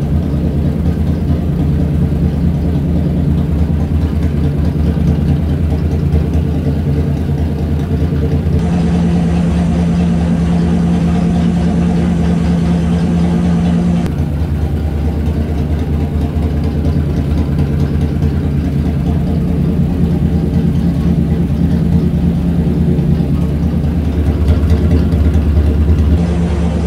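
Chevrolet 327 small-block V8 on an engine dyno, running steadily and smoothly at low speed, purring like a kitten.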